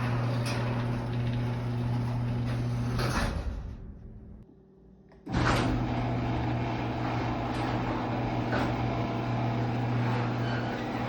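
Garage door and its electric opener running, a steady motor hum with a tick about once a second as the door travels. It stops about three seconds in, and after a quiet pause of about two seconds it starts again with a sharp clunk and runs on.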